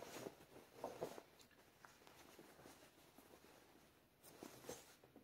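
Faint rustling of trouser fabric being handled and spread open by hand, a few soft brushes in the first second and again near the end, otherwise near silence.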